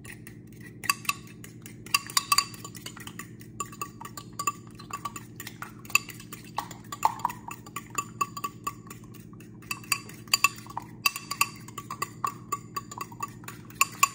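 Raw eggs being beaten with a utensil in a glazed ceramic bowl: quick, irregular clinks against the bowl's side with short ringing, coming in runs with brief pauses.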